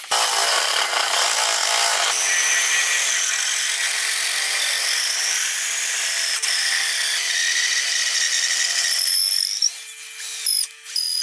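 Power drill spinning a square wooden stick through a jig of two jigsaw blades, the blade teeth rasping it down into a round dowel with a steady whine and scraping. It stops near the end, gives a couple of short bursts, then runs again.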